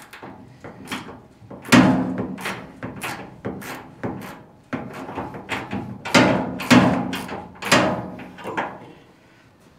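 Metal clanks from a hand tool worked against the underside of a pickup's rear wheel well: a run of sharp knocks with a short metallic ring, about two a second, loudest about two seconds in and again a little past six seconds, fading out near the end.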